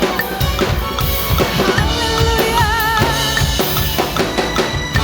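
Drum kit played along to a recorded song at 151 bpm: steady kick drum, snare and rimshot strokes over the backing music, with a wavering held note in the song about halfway through.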